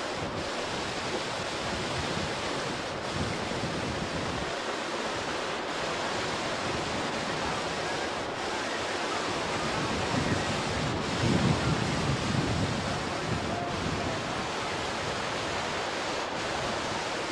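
Steady rushing of wind and sea water, with wind buffeting the microphone. It grows louder for a couple of seconds about ten seconds in.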